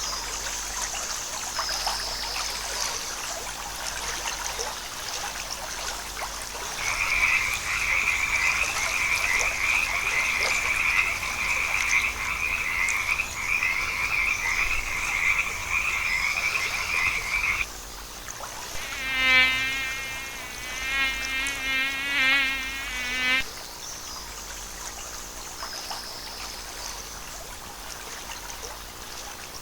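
Frogs calling over a steady background hum of insects. A continuous trilling chorus runs for about ten seconds and stops suddenly. A few seconds later come several loud, wavering croaks with a clear pitch.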